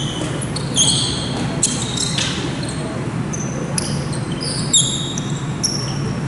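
Basketball shoes squeaking on a hardwood gym floor in many short, high squeaks, with a few thuds of a basketball bouncing, over the steady low hum of a large hall.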